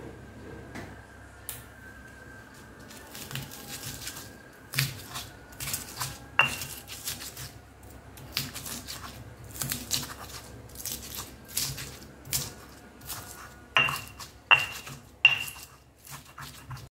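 Stone pestle pounding and grinding shallots, garlic, bird's eye chilies and salt in a stone mortar (Indonesian cobek and ulekan): irregular knocks and scrapes of stone on stone. The loudest are a few sharper, briefly ringing strikes, one about six seconds in and three in quick succession near the end.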